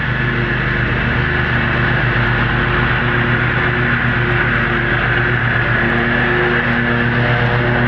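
Lawn mower engine running steadily while cutting grass, with a steady high whine above the engine note.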